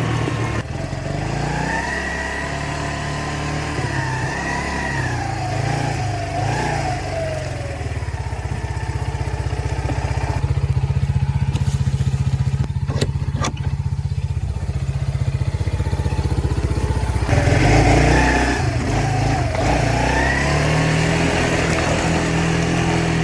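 Off-road vehicle engine running under way, its pitch rising and falling as it speeds up and eases off, with a steadier low throb in the middle and a few sharp clicks about halfway through.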